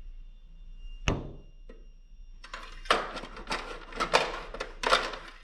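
A single sharp knock about a second in, then about three seconds of irregular scraping and rubbing, from handling the hood and dipstick of a riding mower while checking the engine oil.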